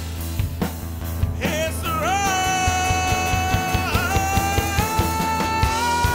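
Live rock band music: a drum kit keeps a steady beat under a long held lead note. The note slides up into place about two seconds in, dips briefly near the middle and steps up near the end.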